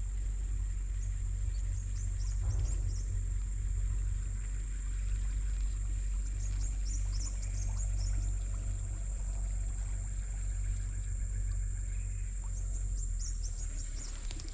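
A steady high-pitched insect drone, with small groups of quick, high, falling bird chirps three times, over a steady low rumble.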